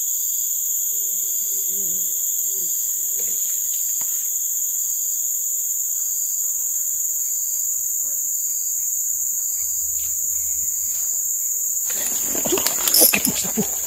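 Steady high-pitched chorus of forest insects, with a faint pulsing call repeating about twice a second beneath it. Near the end come louder rustling and handling noises as a fish strikes and the fishing rod is grabbed before it is pulled into the water.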